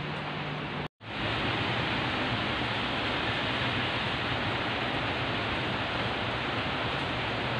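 Heavy rain pouring down in a steady hiss. The sound cuts out for a moment about a second in, then comes back slightly louder.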